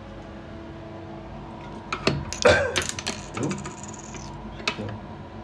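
A few knocks and a short clatter of small objects being handled and set down on a bathroom counter, loudest about two and a half seconds in, over a steady ventilation hum.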